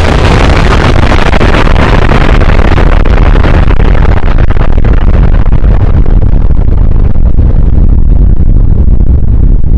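Nuclear-bomb explosion sound effect, played very loud and distorted: a deep, steady rumble after the blast, its hiss slowly dying away while the low rumble carries on.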